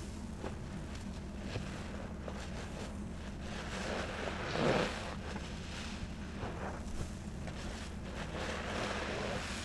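New, stiff yellow sponges squeezed by hand in thick cleaning-product foam: wet squishing of suds, swelling loudest once about halfway through.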